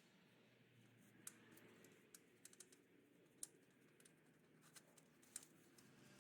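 Near silence with faint, irregular light clicks, a few a second.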